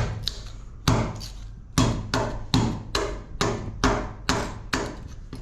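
Hammer blows on the aluminum part of an LED retrofit light, about a dozen sharp metallic strikes at roughly two to three a second.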